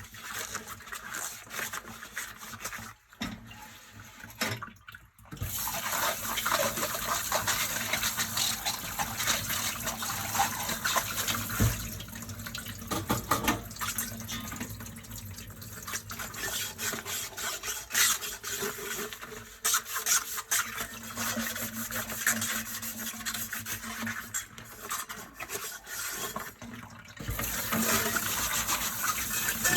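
Dishes being washed by hand at a kitchen sink: tap water running steadily from about five seconds in, with dishes clinking and knocking as they are handled. The water briefly stops near the end, then runs again.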